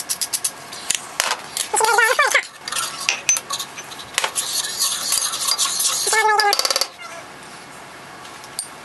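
Hand pepper grinder being twisted over a saucepan: a run of fast clicks, then a denser rasping grind, with two short squeaks, one about two seconds in and one about six seconds in. Quieter after about seven seconds.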